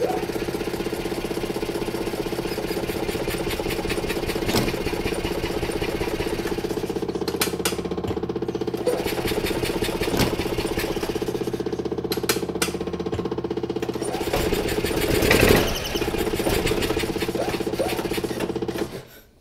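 12-volt electric fuel pump on a Yamaha G29 golf cart running with a loud, fast, steady buzz. It is noisy because it is mounted right to the cart's plastic body. The sound cuts out just before the end.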